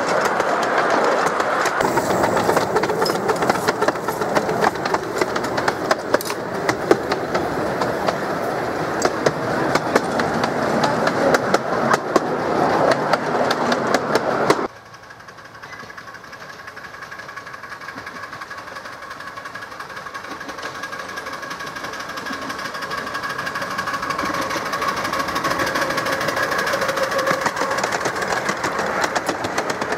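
A ride-on miniature railway train running, with the wheels clicking and clattering over the track, heard from a passenger carriage. About halfway through, it cuts to a quieter steady running sound with faint steady tones, growing louder as a small coal-fired steam locomotive hauling passenger cars approaches.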